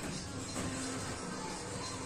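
Background music under the video.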